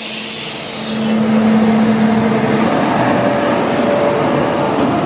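Goods train of coal wagons rolling past, a steady loud rumble with steady whining tones from the wheels and rails; it grows louder about a second in.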